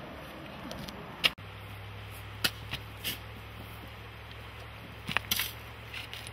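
Shovels scooping and scraping into soil, a few short sharp scrapes and chops scattered through, over a steady low hum that starts about a second and a half in.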